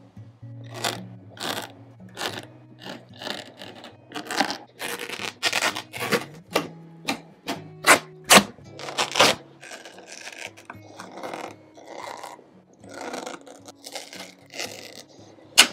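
Old upholstery fabric and padding being ripped and pulled off a wooden chair back: a run of irregular tearing and scraping strokes, the loudest about eight and nine seconds in.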